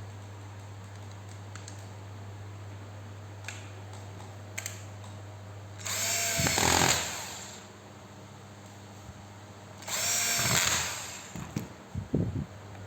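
RYU RRH26 rotary hammer run briefly twice, its motor spinning up and then winding down each time.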